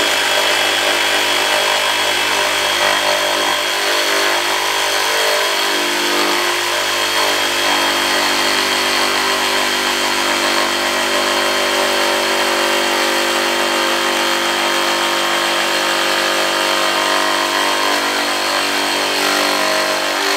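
DEWALT DCS382 cordless reciprocating saw running steadily as its blade cuts into a 2x4 piece of lumber, a continuous motor whine with the sawing of the blade in the wood.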